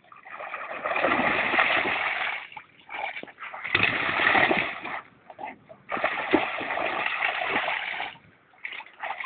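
Giant schnauzer splashing through shallow water in three long bursts of spray, with short quieter gaps between them.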